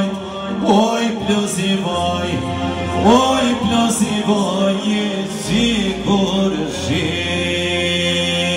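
A man singing an Albanian song, his voice swooping and ornamenting the melody over a steady held low drone note.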